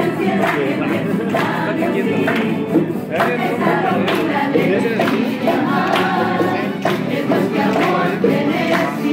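Women's tuna (student estudiantina) singing together in chorus to strummed guitars, with a steady strummed rhythm under the voices.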